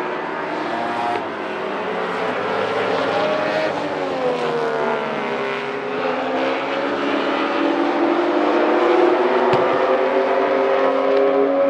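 A field of Baby Grand stock cars running laps on an oval, their engines overlapping, pitches sliding up and down as the cars pass and go through the turns. The sound grows louder toward the end.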